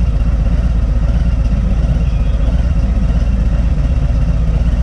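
Touring motorcycle engine idling steadily at a standstill, a fast low throb.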